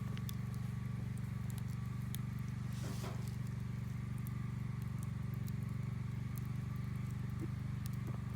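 Scattered small crackles and pops, typical of a campfire burning, over a steady low hum.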